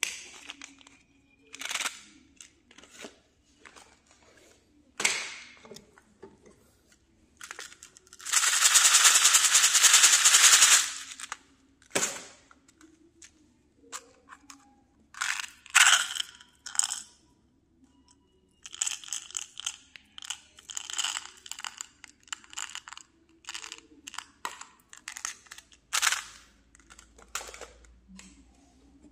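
Small plastic candy containers being handled and opened: a run of sharp clicks and taps from plastic caps and lids, with a louder noisy stretch of about two and a half seconds around eight seconds in and a quick flurry of clicks later on.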